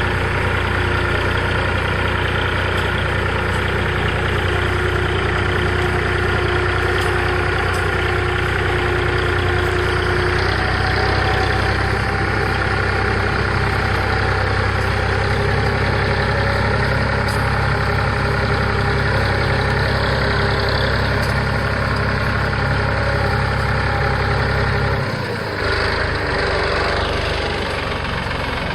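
Engine of the machine pulling a middle buster plow through a potato row, running steadily under load. There is a small shift in pitch about ten seconds in and a brief dip in the engine note near the end.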